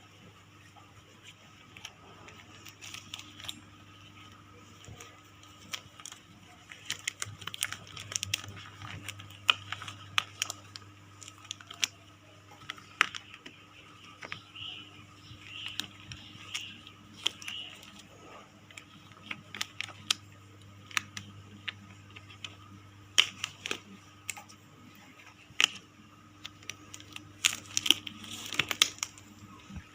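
Irregular clicks, light knocks and crinkling of medical supplies being handled and set down while equipment is prepared, with denser runs of clicks in places, over a faint steady low hum.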